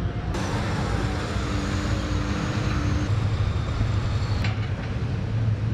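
Heavy military trucks' diesel engines running steadily, a deep low rumble with a faint held whine above it.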